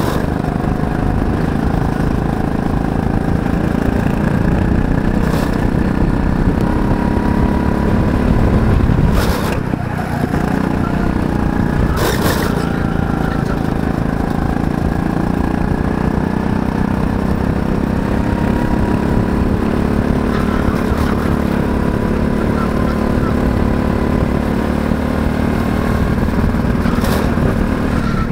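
Go-kart engine heard from the driver's seat, running continuously, its pitch rising and falling as the throttle opens and eases through the corners. A couple of brief rushes of noise come about nine and twelve seconds in.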